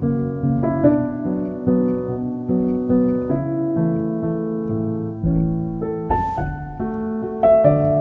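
Background instrumental music: a gentle keyboard melody of steady notes changing every half second or so, with a brief hiss-like swell a little after six seconds.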